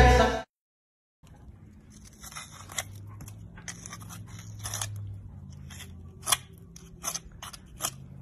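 A hoof pick scraping and crunching packed dirt out of the sole of a shod horse's hoof, in a series of short strokes about one or two a second.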